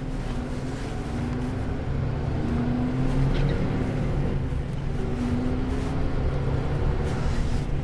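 Diesel engine of a Mercedes-Benz Antos 1824 18-tonne lorry running under way, its note rising and falling a little as it drives.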